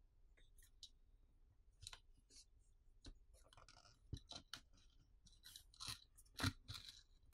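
Faint, irregular clicks and scrapes of a pry tool working the Pixel 8a's plastic backplate loose from its adhesive. The sharpest snap comes about six and a half seconds in.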